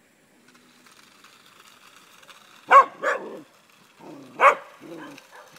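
A dog barking three times: two quick barks about halfway through, and one more about a second and a half later, with quieter low sounds between them.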